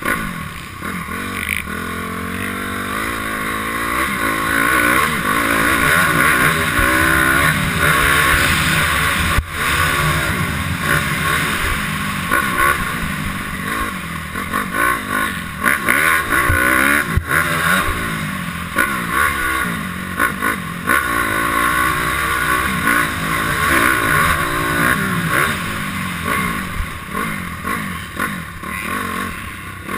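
Honda CRF250R dirt bike's single-cylinder four-stroke engine revving hard and easing off again and again, its pitch rising and falling as the rider accelerates, shifts and slows for corners, heard from on the bike.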